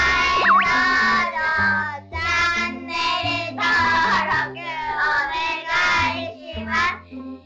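Upbeat sung jingle in a children's-song style, the vocal phrases breaking off about once a second over a stepping bass line, with a springy boing sound effect right at the start.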